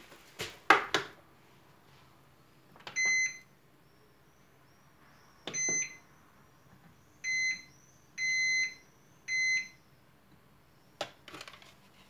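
Microwave oven control panel beeping as its buttons are pressed: five short electronic beeps at one pitch, the fourth a little longer. A few handling clicks and knocks near the start and again near the end.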